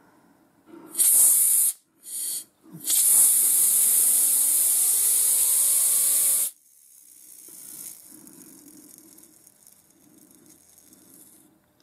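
Compressed air hissing in three blasts, the last about three and a half seconds long, blowing white spirit out of a lathe live centre's ball bearings. Under the long blast a whine rises in pitch as the bearing spins up, followed by a faint whir that fades out.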